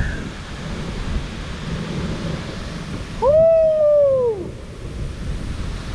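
Steady rushing of a waterfall. About three seconds in, a single loud, drawn-out call rises slightly and then falls in pitch, lasting just over a second.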